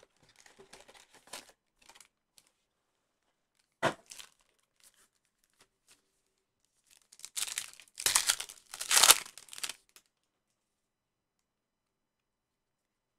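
Foil trading-card pack wrappers crinkling and tearing open, for about two and a half seconds past the middle, after a single sharp knock about four seconds in.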